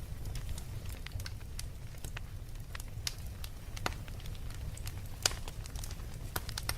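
Wood fire crackling in a fireplace: irregular sharp pops and snaps, the loudest about five seconds in, over a steady low rumble.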